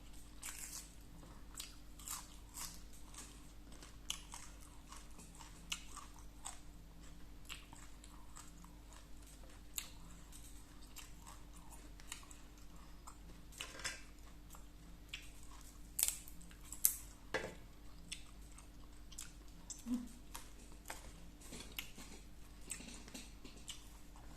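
A person eating koi khom with rice close to the microphone: chewing and biting, heard as irregular short mouth clicks, the sharpest two about sixteen and seventeen seconds in.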